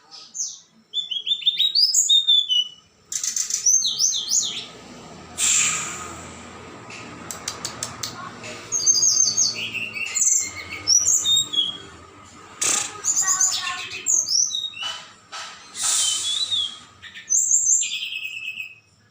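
Several small songbirds chirping and calling in quick series of high notes, many of them falling in pitch, with a few short harsh, noisy bursts among them.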